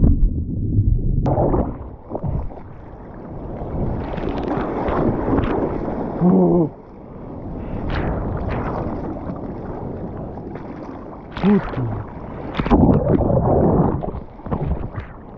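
Ocean water churning around a GoPro as it is pushed under a breaking wave: a muffled underwater rumble for about the first second, then water splashing and sloshing as it surfaces and the surfer paddles. Two brief voice-like sounds about 6 and 11.5 seconds in.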